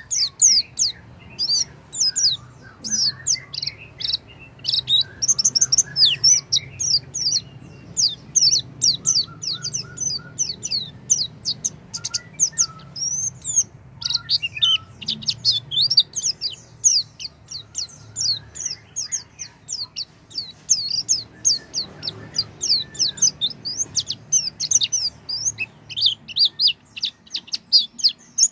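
White-eye (pleci) singing a fast, continuous twittering song of high chirps and quick trills, with few pauses.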